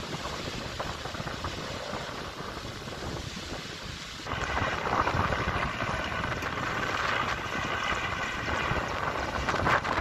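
Wind buffeting a phone's microphone, a steady rumbling rush. About four seconds in, at a cut, it jumps louder and brighter.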